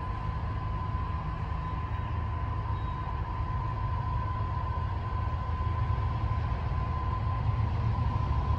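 Diesel freight locomotive approaching, a low engine rumble that grows slightly louder toward the end, with a thin steady high tone alongside.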